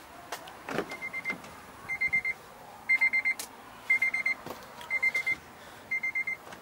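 2003 Honda Element's dashboard reminder chime beeping: quick high beeps in groups of four, about one group a second. A few faint clicks fall between the groups.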